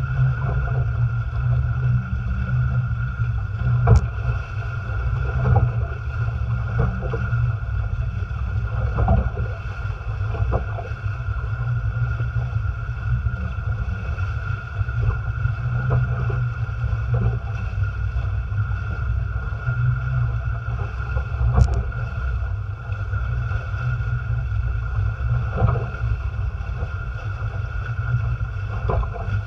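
Wind rumbling on the microphone and water rushing and splashing along the hulls of a Tramp folding trimaran sailing fast. There are two sharp knocks, one about four seconds in and one about twenty-two seconds in.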